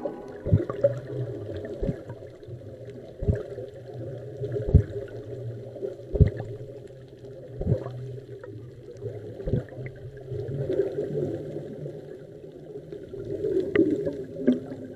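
Muffled underwater sound of rising air bubbles gurgling, with a dull knock roughly every one and a half seconds.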